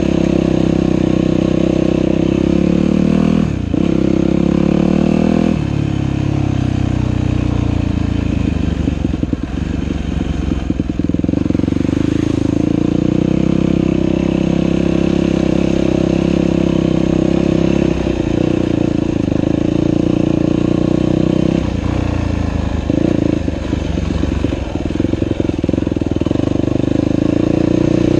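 Dirt bike engine running under way, its revs rising and falling with the throttle, with a sharp drop about three and a half seconds in and choppy on-off stretches in the middle and near the end.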